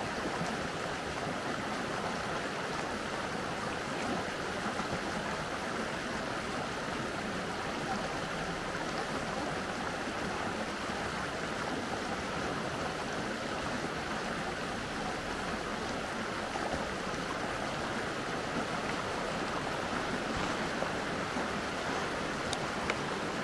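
Mountain stream running steadily: an even wash of flowing water.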